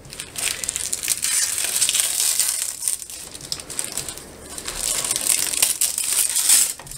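Clear plastic protective film crinkling and rustling as it is peeled off a PEI sheet by hand. It eases off a little past halfway and picks up again until near the end.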